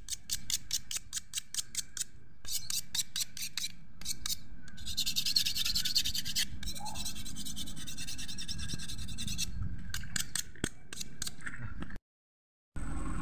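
A flat stone ground back and forth against another stone in quick scraping strokes, several a second, to sharpen it into a makeshift blade for cutting fish. Partway through, the strokes run together into a harsher continuous scrape, then quick strokes again; the sound drops out completely for a moment near the end.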